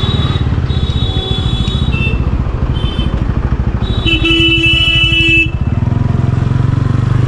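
TVS Ronin 225's single-cylinder engine chugging at low speed in slow traffic, its firing pulses steady throughout. Vehicle horns honk over it four times: three shorter beeps in the first three seconds, then a longer honk of over a second about four seconds in.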